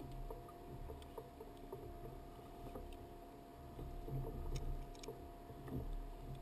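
Water moving against a plastic fishing kayak's hull, with a low rumble of wind on the microphone and a few faint clicks.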